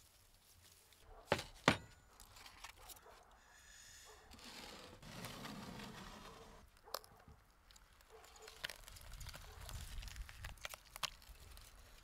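Hands handling a roast goose and its foil wrapping: scattered crinkling, rustling and tearing, with two sharp clicks about a second and a half in.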